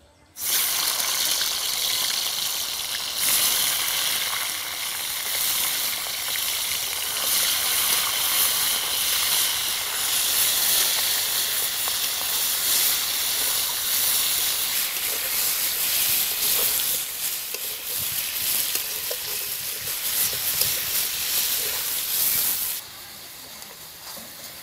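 Marinated chicken pieces frying in hot oil in a karahi, sizzling loudly with a steady hiss that starts suddenly as the meat goes into the oil. The sizzling drops sharply near the end.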